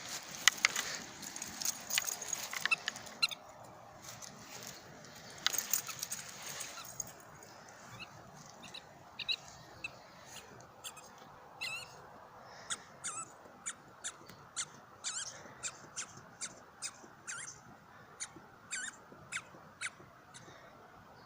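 Squeaky toy ball squeaking again and again as it is chewed, with scuffling in the first few seconds and then a run of short, high squeaks about two a second.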